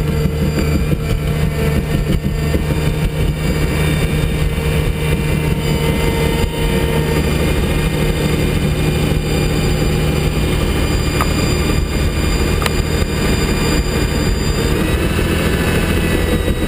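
Prinoth snowcat's diesel engine running steadily under way, heard from inside the vibrating cab. Its note shifts slightly near the end.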